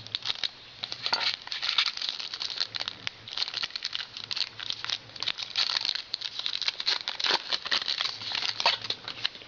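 A trading card pack's wrapper crinkling and being torn open, with the cards rustling as they are handled; irregular crackles throughout.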